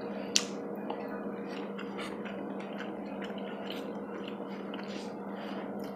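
A person chewing food, with small, irregular wet mouth clicks over a steady low hum; one sharp click about half a second in.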